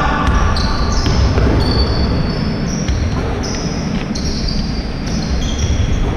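Basketball bouncing on a hard indoor court during play, with sneakers squeaking briefly and repeatedly on the floor, all echoing in a large hall over a steady low rumble.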